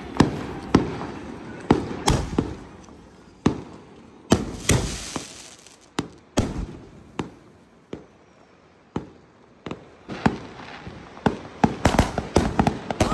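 Fireworks going off: irregular loud bangs and pops, some ringing on after the hit, with a hissing rush about four and a half seconds in, a quieter spell midway and a quick cluster of cracks near the end.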